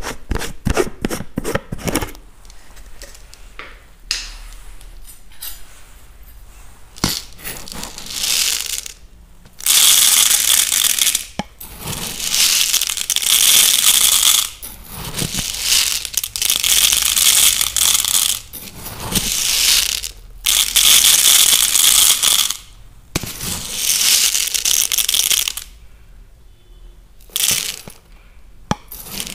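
Raw basmati rice handled close to the microphone: a quick run of clicks as the plastic jar's lid is worked open, then repeated loud bursts of dry grains rattling and crunching, each a second or two long, as a steel spoon scoops the rice in the plastic jar.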